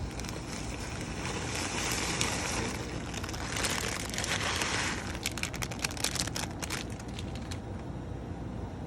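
Plastic packaging crinkling in two stretches, then a quick run of light clicks and taps, over a steady low background noise.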